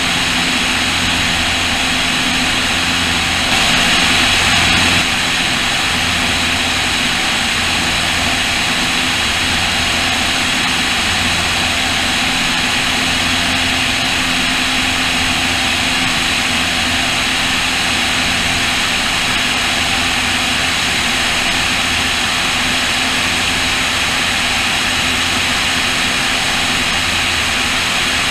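Cessna O-2A in cruise, its two Continental six-cylinder engines (front and rear, push-pull) droning steadily under a heavy rush of slipstream wind on a wing-mounted camera. The low engine throb swells and fades every second or two, and the wind rush grows briefly louder about four seconds in.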